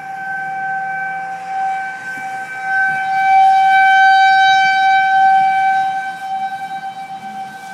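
Outdoor tornado warning siren sounding a steady, unchanging tone, swelling louder about three seconds in and easing off near the end. It is the community's warning that a tornado is on the ground.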